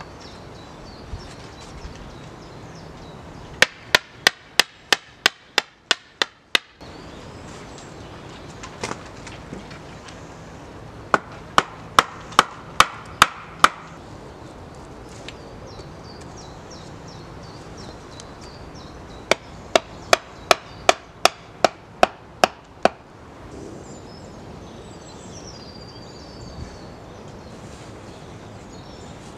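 Hatchet blows hammering wooden stakes into the ground: three runs of sharp wooden knocks, about three to four blows a second and eight to eleven blows each, with pauses between.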